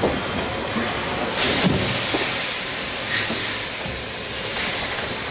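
Two-foot gauge steam locomotive hissing steam steadily, with one louder burst of hiss about a second and a half in.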